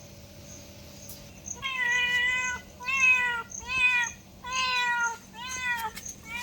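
Domestic cat meowing five times in quick succession, starting about one and a half seconds in, each call a short drawn-out meow.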